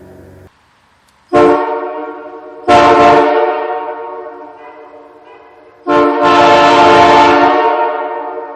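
Nathan Airchime K3L three-chime locomotive air horn sounding a loud chord in blasts: a short one about a second in, a second soon after that fades away slowly, and a longer one near the end with a brief break at its start, each dying away gradually after it stops.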